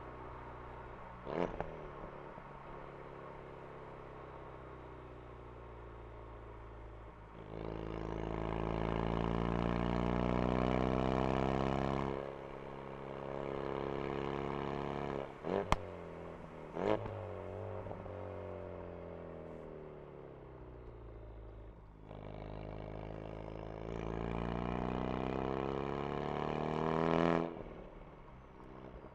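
Ford Focus RS engine and exhaust: the car cruises steadily, then three times it accelerates with the note rising and afterwards falls away as it slows. A few sharp cracks come through, one about a second in and two just after the middle pull.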